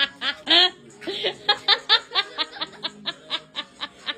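A person laughing hard in a long run of quick, even, breathy bursts, about six a second, with a few louder whoops in the first second.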